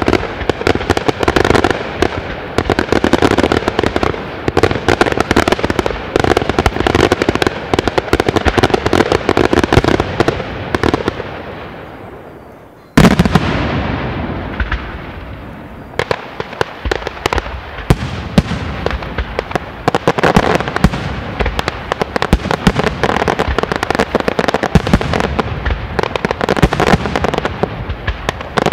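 Daytime fireworks shells bursting overhead in a rapid, dense barrage of bangs and crackling. The barrage dies away, a single loud bang comes about halfway through, and then the barrage builds up again.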